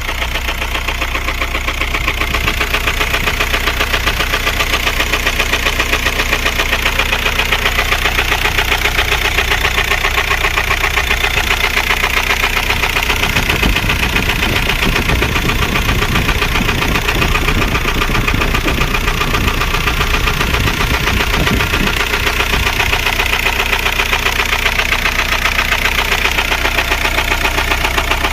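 Volkswagen Golf 4's 1.9 TDI (AJM) four-cylinder diesel engine running with a steady, evenly repeating knock. The knock comes from a failing connecting-rod bearing.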